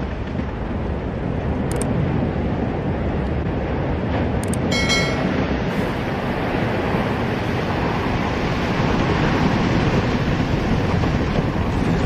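Steady wind buffeting the microphone over waves washing against an icy shore. About five seconds in, a short bell-like chime sounds, with faint clicks before it.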